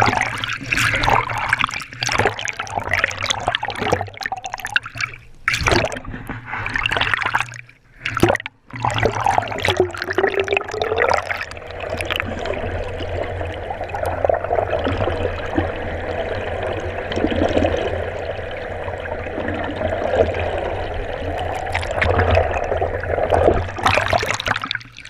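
Sea water splashing and gurgling in irregular surges, with a steady low hum underneath.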